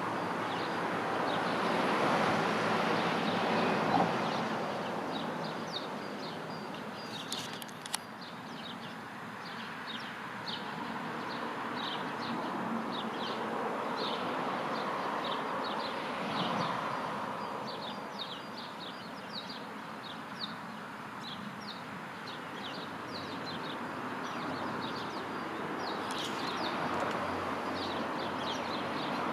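Road traffic going past in waves, three vehicles loudest. Short high bird chirps repeat two or three times a second over it.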